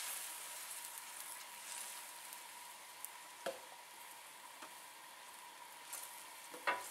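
Seafood broth simmering in a wok with a steady faint hiss as its sauce thickens with a starch slurry, stirred with a metal ladle that knocks against the wok a few times in the second half.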